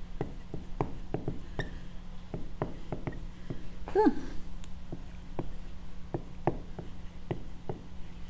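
Dry-erase marker writing on a whiteboard: a run of light taps and scratchy strokes as the letters go down. About four seconds in comes a short squeak of the marker, falling in pitch. A low steady hum runs underneath.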